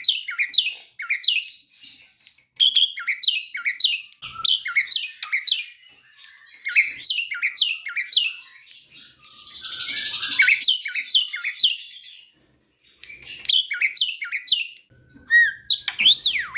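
Javan myna singing in rapid runs of short, downward-sweeping notes, about four a second. About ten seconds in, the runs are broken by a harsh, rasping call; a pause follows, and near the end comes a whistled note that rises and falls.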